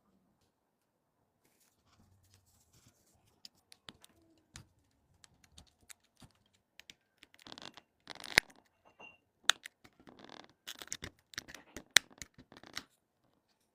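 Small repair tools clicking, tapping and scraping on a smartphone with cracked back glass. Scattered light ticks at first, then busier scraping and a few sharp clicks from about seven seconds in.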